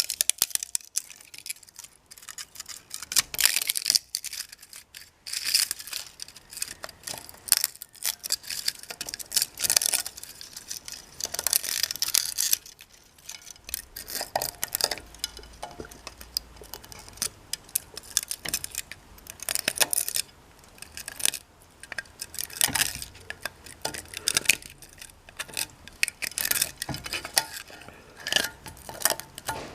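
Irregular clicking and clattering of hard plastic parts being handled and set down on a surface, with quick sharp knocks and rattles every second or so.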